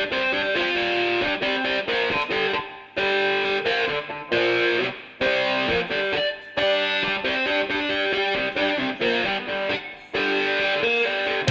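Rock music: a distorted electric guitar plays a melodic riff in short phrases, with brief gaps between them.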